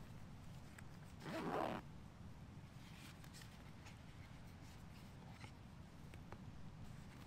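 A knife being handled and drawn from its leather sheath: a short sliding rasp about a second and a half in, then faint small clicks and leather rubbing.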